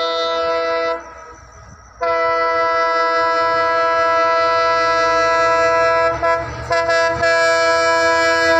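Diesel locomotive's air horn sounding a long, steady chord. It breaks off about a second in, resumes a second later and is held on, while the rumble of the approaching train grows near the end.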